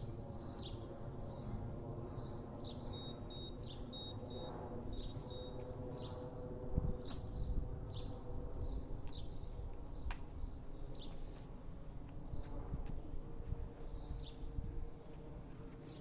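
A bird calling over and over: short, high chirps, each falling in pitch, one or two a second, with a brief pause near the end. A low rumble runs underneath.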